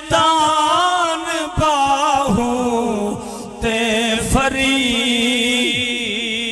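A man singing a devotional poem (naat) in Saraiki/Punjabi through a microphone and loudspeakers, in long held notes with wavering, gliding ornaments and a brief pause about three seconds in.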